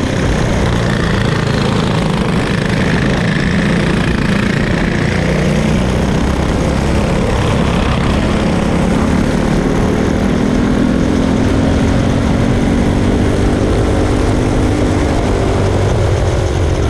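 Tillotson 225RS single-cylinder kart engine racing, heard on board under a steady rush of noise. Its revs rise and fall through the corners, then climb steadily as the kart accelerates down the straight in the second half.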